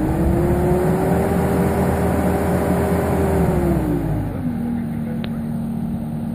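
2014 New Holland L230 skid steer's 84 hp diesel engine running. Its pitch rises slightly at the start and holds, then drops about four seconds in and settles at a lower steady speed.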